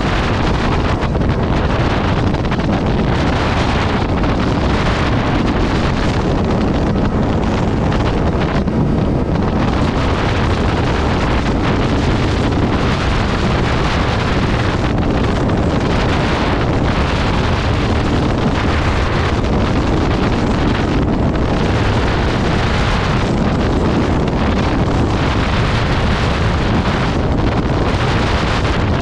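Heavy, steady wind rush on the microphone of a sport motorcycle riding at highway speed, the wind blast covering the engine and road sound.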